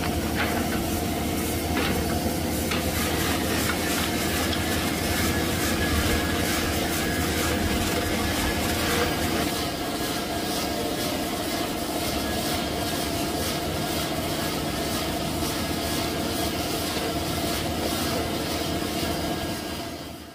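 A machine's motor running steadily with a dense rattling clatter, cutting off near the end.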